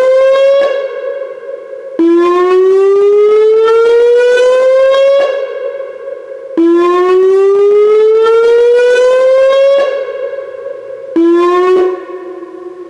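Whelen WPS-2905 electronic warning siren sounding its whoop tone, the dam evacuation alarm tone sounded as a test. Each whoop is a loud rising sweep of about three seconds that cuts off sharply and echoes for about a second before the next. The last whoop near the end stops after half a second and the echo dies away.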